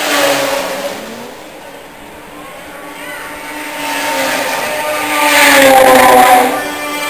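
Racing snowmobile engines at high revs as the sleds pass on the track. One goes by at the start, the sound dies down, then builds again to a loud pass about six seconds in, its pitch dropping as it goes by.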